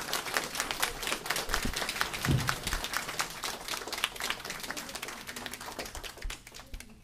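Audience applauding, many hands clapping in a dense patter that slowly dies away towards the end.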